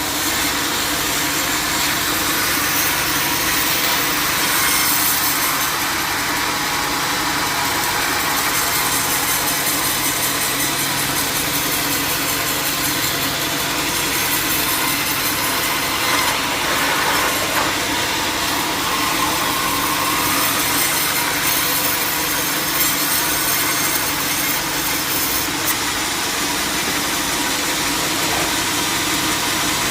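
Band sawmill sawing a jackfruit log: a steady sawing noise of the blade through the wood over the hum of the mill's motor.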